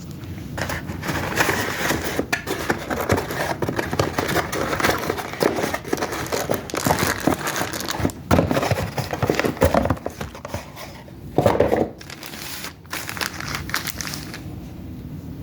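Packaging crinkling and rustling as it is handled and pulled apart, in irregular bursts, with a louder crackle near the end.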